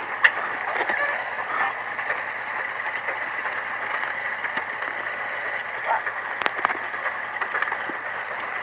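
Ford Ranger prerunner race truck's engine running at idle, heard inside the cab as a steady hum, with a few sharp clicks, the loudest about six and a half seconds in.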